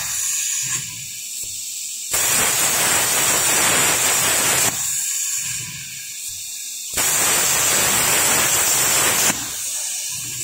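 Air plasma cutter on a CNC table, Huayuan LGK-200A power source, cutting mild steel in two bursts of loud, harsh hiss about two and a half seconds each, starting about two seconds in and again about seven seconds in. Between the cuts the arc is off and only a fainter hiss remains.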